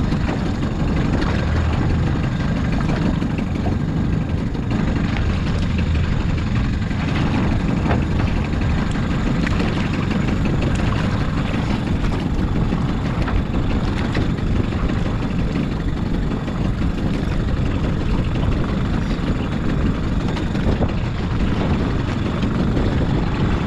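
Outboard motor of a small open aluminium boat running steadily at sea, with wind and water noise on the microphone.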